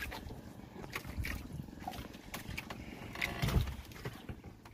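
Irregular knocks and thumps on the deck of a small fishing boat, with a heavier thud about three and a half seconds in.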